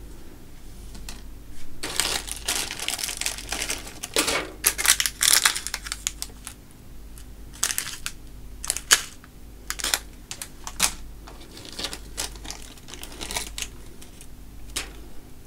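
Small clear plastic bags of PC case screws and parts being handled and opened: the plastic crinkles in bursts, and several sharp clicks are heard in between.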